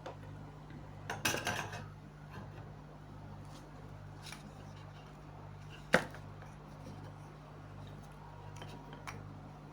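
Small clicks and taps of soldering tools and wire being handled, a short cluster about a second in and one sharp click about six seconds in, over a steady low electrical hum.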